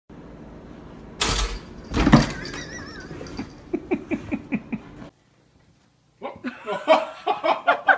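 Two sudden loud knocks, like something banging or falling, followed by a run of short laughs. After a brief cut to silence, people laughing and chattering.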